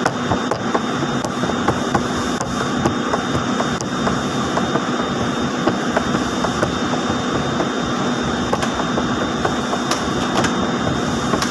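Steady, loud running noise of textile spinning-mill machinery such as ring spinning frames, with a constant hum, a thin high whine and a stream of small rapid clicks throughout.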